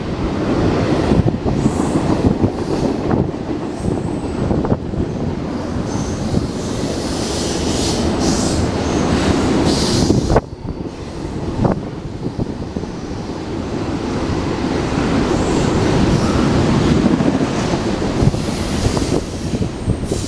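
A train passing close by: a steady rumble of steel wheels on the rails, with short high wheel squeals coming and going and scattered clicks.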